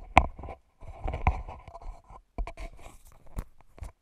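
A cardboard box being handled and shifted on a desk: scraping and crunching with several sharp knocks. The loudest knock comes right at the start.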